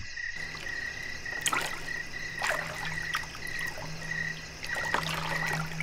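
Night ambience of a river: crickets chirping at a high pitch in quick pulses, frogs croaking low in stretches, and water trickling.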